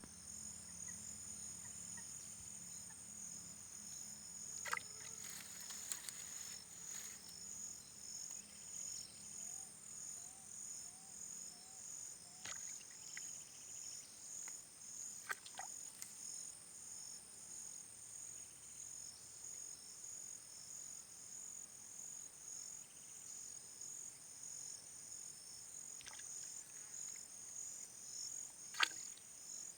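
Faint, steady chorus of insects calling in a pulsing high trill. A row of five short rising chirps comes about ten seconds in, and four sharp clicks stand out, the loudest near the end.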